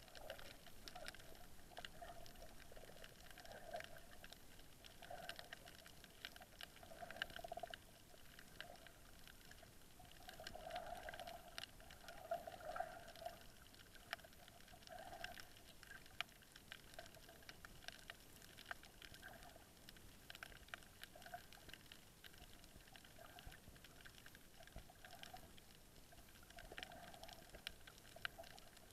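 Faint underwater reef ambience: scattered sharp clicks and crackles over soft, irregular water sounds.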